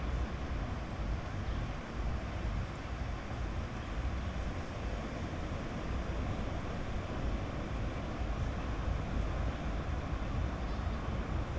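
Sea surf on a beach, a steady roar of waves that is heaviest in the low end.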